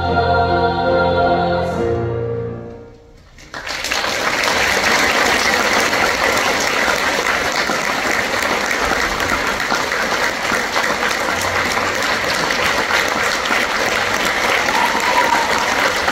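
A women's choir with piano holds a final chord, which ends about three seconds in. After a brief hush, the audience breaks into steady applause that lasts to the end.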